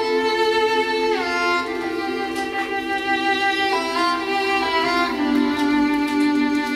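Slow violin music: a bowed melody with notes that slide between pitches, over held lower string notes.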